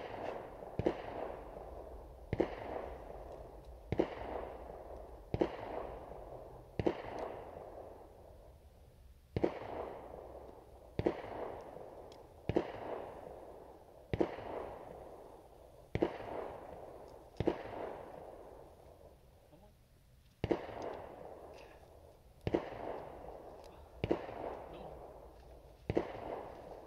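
Gunshots from a shooting range, a steady series of single shots about one every second and a half, each a sharp crack trailed by a long echo.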